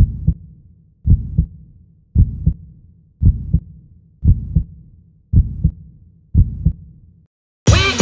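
A heartbeat sound effect: seven low double thumps, lub-dub, about one pair a second, each fading out. Drum-heavy music cuts in just before the end.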